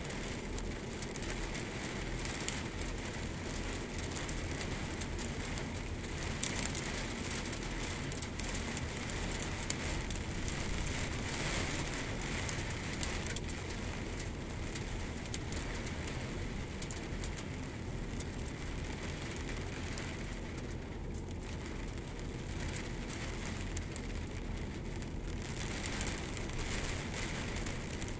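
Heavy rain falling on a puddled, muddy yard: a steady hiss of rain full of fine crackling patter.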